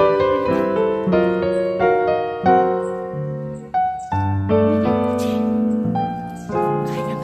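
Background piano music: a gentle melody of single notes and chords, each struck and left to fade, a new note every half second or so.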